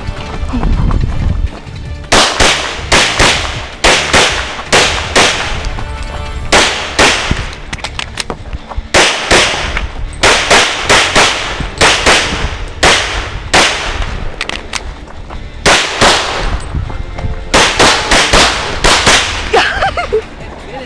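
Glock 22 .40 S&W pistol fired many times in quick strings, often two shots close together, with short pauses between groups. These are the shots of a competition stage run, starting about two seconds in and ending just before the end.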